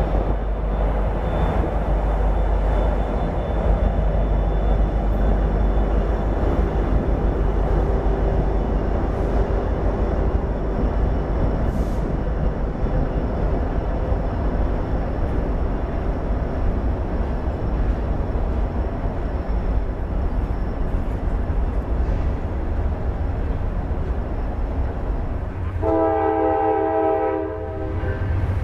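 Norfolk Southern freight train passing close by: SD70ACu locomotives and then a string of freight cars, a steady heavy rumble of wheels on rail. About 26 seconds in, a Nathan K5LA five-chime horn on an NS C40-9W sounds a sustained chord.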